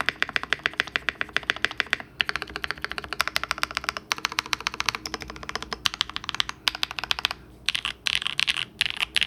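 Fast typing on a mechanical keyboard fitted with lubed Singularity linear switches, aluminium-plated nylon housings: quick runs of keystroke clacks, pausing briefly about two, four and seven and a half seconds in.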